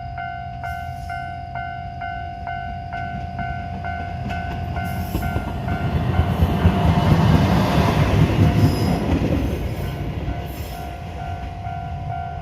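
Japanese level-crossing bell ringing rapidly, about three dings a second, while a Moka Railway train passes over the crossing. The train's rumble rises to its loudest about seven to nine seconds in, drowning the bell, then fades, leaving the bell ringing on.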